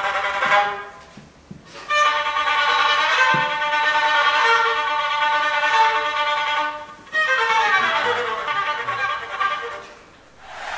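A child playing a melody on a small violin, in bowed phrases of long, held notes. The playing stops briefly about a second in and again about seven seconds in, and fades out near the end.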